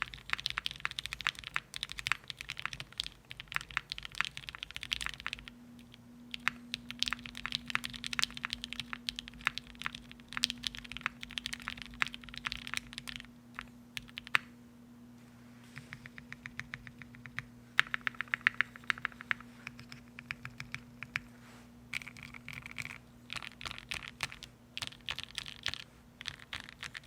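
Typing on a custom gasket-mounted 60% mechanical keyboard, a TGR X Singa Unikorn 60 with an aluminium half plate, lubed and filmed Alpaca linear switches and GMK keycaps: runs of fast keystrokes with a brief pause about halfway through.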